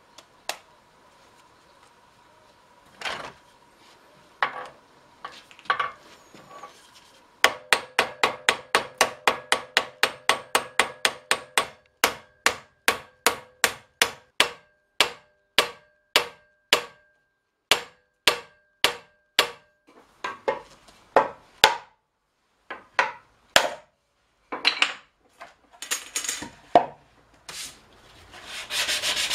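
Hand hammer riveting the ends of a steel barrel hoop on the horn of a bench vise: a quick even run of sharp metal strikes, about three or four a second, each with a ringing note, then slower scattered blows. Near the end a loud steady rubbing noise begins.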